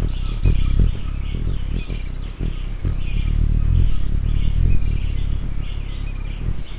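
Several birds calling in a forest: one bird repeats a short, high call with ringing overtones about once a second, over steady chatter from other birds, with a low rumble underneath.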